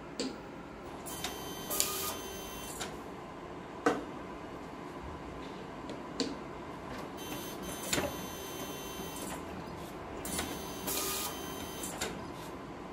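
Epson TM-C6000 colour inkjet label printer printing labels: three whirring passes of its mechanism with a steady whine, broken up by several sharp clicks.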